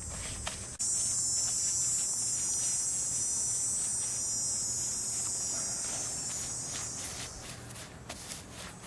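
A steady, high insect buzz starts abruptly about a second in and fades away near the end. Under it, a paint brush scrapes in short repeated strokes over asphalt shingles.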